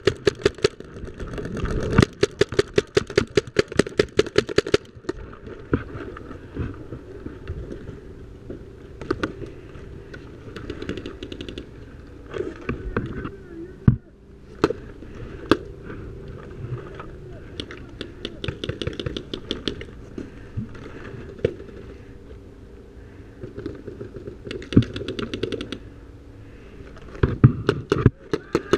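Paintball markers firing: a rapid string of shots, about eight a second, for roughly three seconds near the start, then scattered short bursts of shots through the rest.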